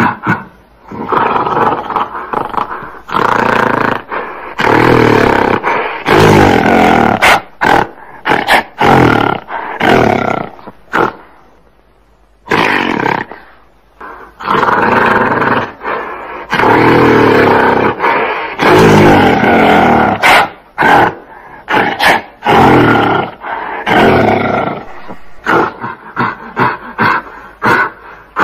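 Gorilla calling in a series of loud calls, each a second or two long, with a short pause about twelve seconds in. Runs of quick short sounds come near the start and again near the end.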